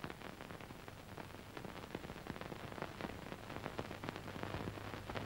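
Faint hiss and irregular crackle of a worn Soviet-era film soundtrack, with a steady low hum underneath, slowly growing louder.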